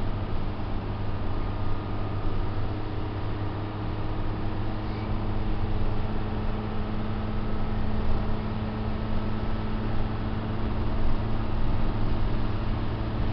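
Bus engine running with a steady low drone, heard from inside the passenger saloon along with general rumble and road noise.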